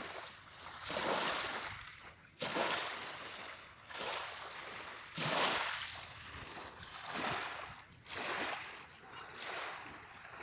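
Small waves washing onto a beach, each a rush of water that rises and falls away, coming every second or two; the strongest surge is about five seconds in.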